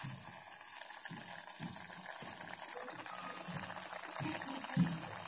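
Curry gravy boiling in a steel pot: a faint bubbling with soft low plops, one a little louder near the end.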